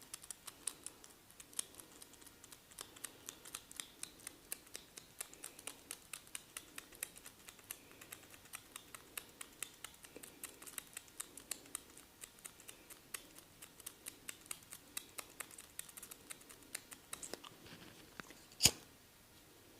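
Close-up barber work on a head: a dense run of crisp, rapid clicks, several a second, with one much louder sharp crack near the end.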